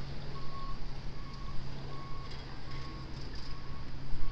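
Vehicle backup alarm beeping: about six evenly spaced single-tone beeps, a little under a second apart, over a steady low hum and background noise.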